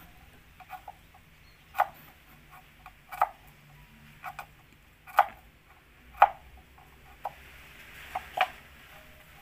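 Knife blade knocking on a wooden cutting board while slicing garlic cloves: separate sharp taps, about one a second, some in quick pairs.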